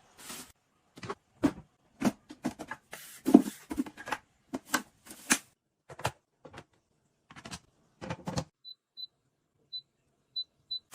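A run of irregular sharp clicks and knocks, then five short high beeps near the end.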